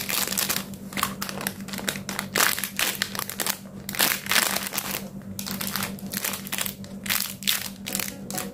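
Plastic packaging crinkling and crackling in irregular bursts as squishy toys are handled.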